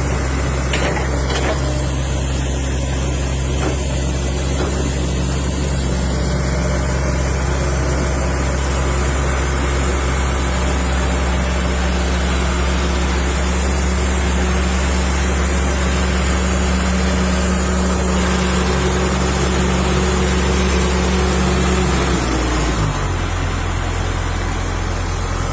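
Diesel engine of a Caterpillar E120B excavator running steadily at raised speed, then dropping to a lower speed near the end.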